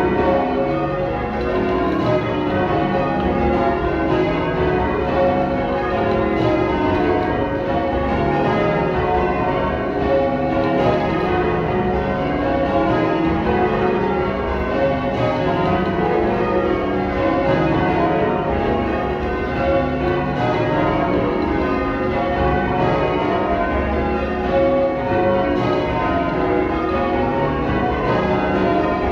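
Change ringing on a ring of twelve church bells, tenor 28-2-16 cwt in C#: the bells strike one after another in a steady, unbroken run of changes, their tones overlapping.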